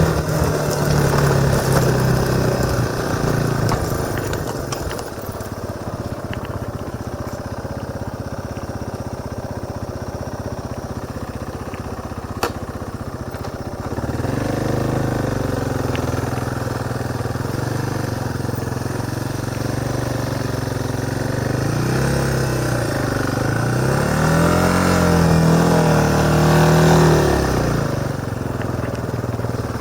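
Motorcycle engine running while riding, heard from a camera strapped to the rider's helmet. Its pitch rises and falls with the throttle through the second half, then drops near the end.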